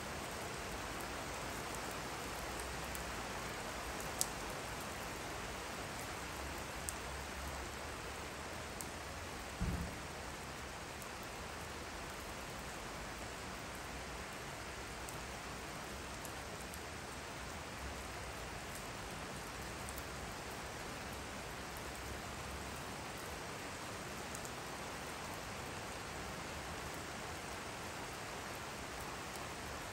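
Steady rain falling, an even hiss with a few faint drop ticks. A brief low thump about ten seconds in stands out above it.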